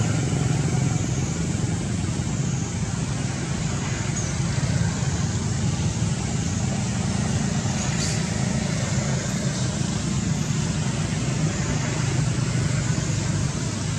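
Steady low rumble with an even hiss over it, level throughout, with no distinct calls or knocks.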